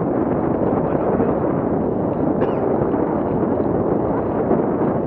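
Steady rushing noise of inline skating at speed: wind buffeting the action camera's microphone mixed with skate wheels rolling over asphalt.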